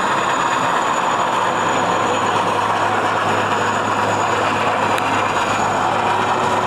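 Military transport helicopter hovering overhead with a load slung on a long cable, its rotor and turbine making a loud, steady noise with a thin high whine.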